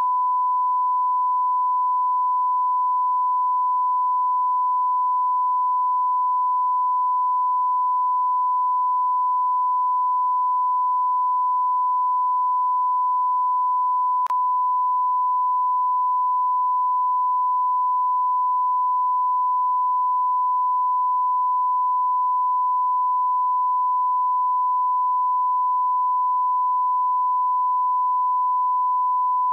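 Steady, unbroken 1 kHz sine-wave test tone: the line-up tone broadcast with a television test card.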